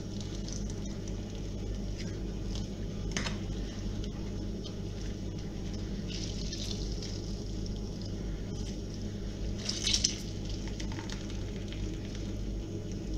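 Salted grated zucchini being squeezed out by hand, its juice dripping and splashing into a bowl, with the loudest wet splash about ten seconds in, over a steady low hum.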